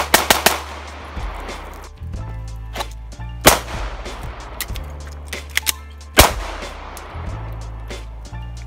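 9mm Glock 19 pistol with a compensator firing over background music. It opens with a fast string of about four shots, then single loud shots about three and a half and six seconds in.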